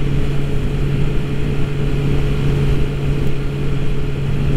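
Motorcycle engine running at a steady cruise with a constant hum, under wind and road noise from riding.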